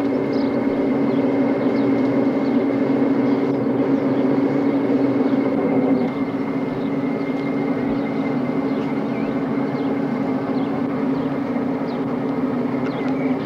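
A steady mechanical drone with a thin high whine above it. It holds the same pitch throughout and dips slightly about six seconds in.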